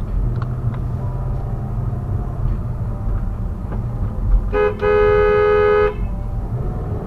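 Steady car engine and road rumble, with one car horn blast, just over a second long, a little past the middle.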